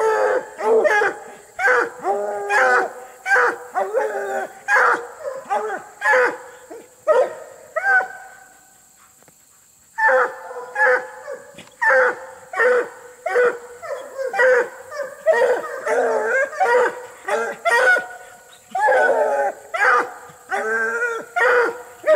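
Walker coonhounds barking and bawling in quick succession, baying at a caged raccoon. The calls break off for about a second and a half partway through, then resume.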